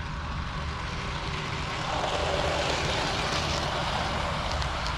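HO scale model Southern Pacific passenger train rolling along the track, its running noise growing louder about two seconds in as the cars come close, with a few light clicks near the end.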